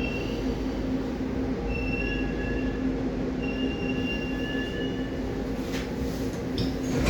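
Baltiets metro train running with a steady low hum and thin, high wheel squeals that come and go, with a few sharp knocks from the track near the end.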